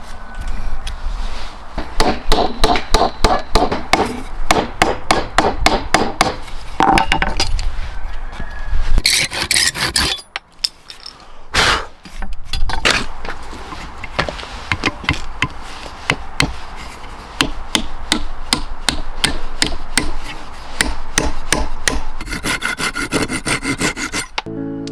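Hand tools working wood: quick repeated rubbing and rasping strokes, like sawing or filing, with a short lull about halfway through.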